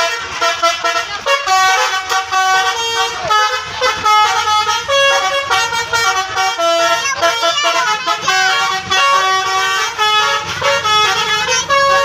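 Indonesian bus's Basuri telolet horn, a multi-tone electric horn, playing a tune: a loud, unbroken run of short held notes stepping up and down in pitch.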